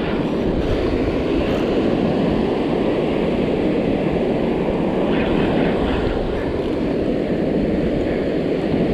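Wind rushing over the microphone in a steady rumble, mixed with surf breaking on the shore.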